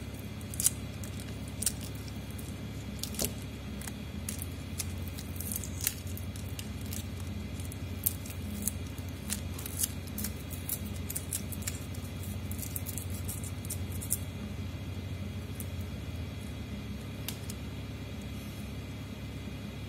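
Tape or plastic film being peeled and crinkled by hand on a phone battery: irregular sharp clicks and crackles, thicker for the first two-thirds and sparser near the end, over a steady low hum.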